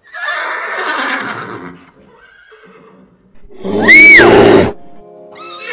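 Horse whinnies: a noisy whinny lasting under two seconds, then after a short lull a louder, high-pitched whinny that rises and falls, about three and a half seconds in.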